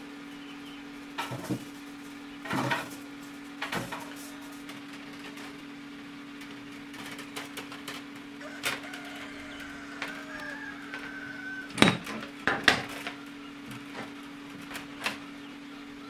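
Copper tubing coil and brass fittings being handled, giving scattered short clicks and knocks, the loudest a cluster about 12 seconds in, over a steady low hum.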